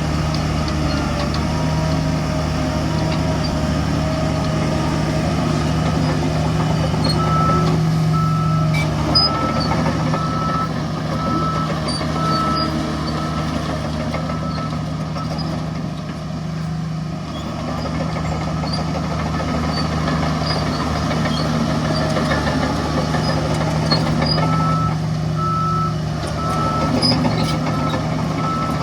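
Heavy diesel earthmoving machinery running steadily, with a reversing alarm beeping in an even series, a little faster than once a second. The beeping starts about a quarter of the way in, stops around the middle, and starts again near the end.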